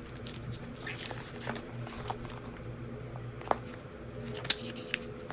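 Paperback manga volume being handled and its pages turned: soft paper rustling and a few sharp little clicks, the sharpest about four and a half seconds in, over a steady low hum.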